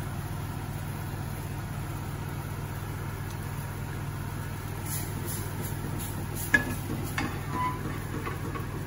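A steady low kitchen hum runs under cookware handling: about six and a half seconds in, a sharp knock as a frying pan is set down on a gas hob, followed by a few lighter knocks of a wooden spoon stirring a small steel saucepan.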